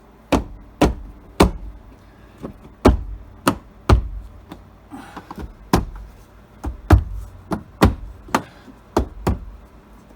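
About fifteen sharp knocks at irregular intervals as a plastic interior trim panel is struck to snap its retaining clips into place.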